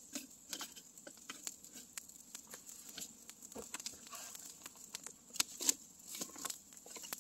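Wood campfire crackling, with irregular sharp pops and snaps throughout. About five and a half seconds in come two louder snaps and knocks as the burning logs are poked with a stick.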